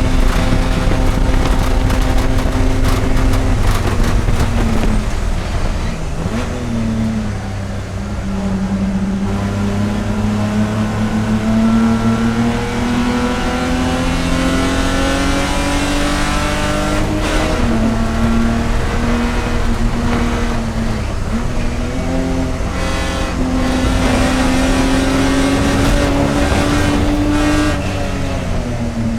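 A race car's engine running hard under load. Its pitch climbs slowly and falls back several times as the car shifts or slows for corners.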